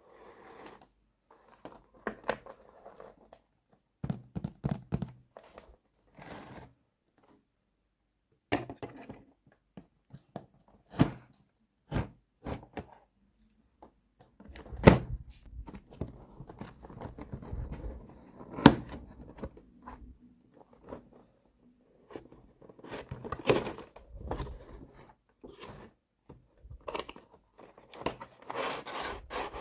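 Small plastic toy kitchen pieces and their packaging being handled and unpacked: scattered clicks, taps and rustling, with two sharper knocks about halfway through.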